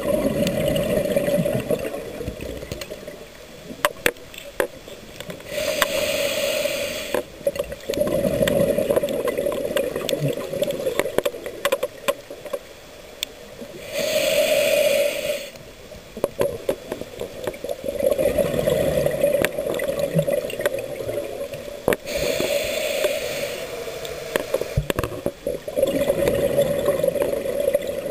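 A scuba diver breathing through a regulator, recorded underwater. A short hiss of inhaling comes three times, about eight seconds apart, and each time it gives way to a long gurgling rush of exhaled bubbles.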